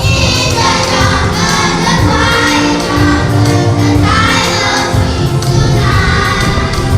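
A song sung by a group of voices together over instrumental music.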